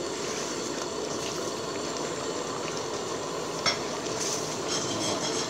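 A metal ladle stirring a thick pineapple-and-onion curry sauce in an aluminium pot, with the sauce sizzling steadily as the onion softens. A single sharp click a little past halfway.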